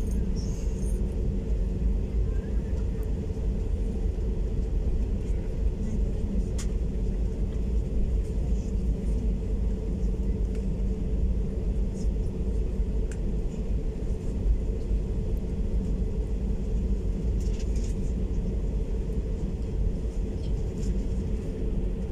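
Cabin noise of an Airbus A320neo taxiing: a steady engine hum with a constant tone over a low, even rumble from the aircraft rolling along the taxiway.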